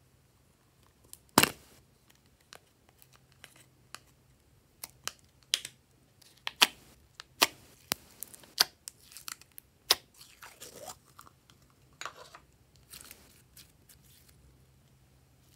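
Clear blue slime full of glitter flakes being poked and pulled out of its plastic cup by hand: a run of sharp, sticky clicks and crackles, the loudest about a second and a half in.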